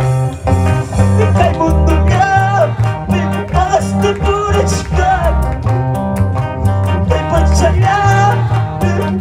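Live band music from electric guitar, keyboard and bass, with a steady beat and a melody line gliding above it.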